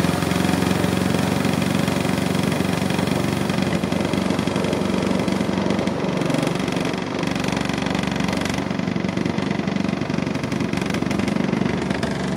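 Spin-dryer tub of a Tangarus Cadiz twin-tub portable washing machine running, its motor humming steadily as it spins water out of a load of wet clothes.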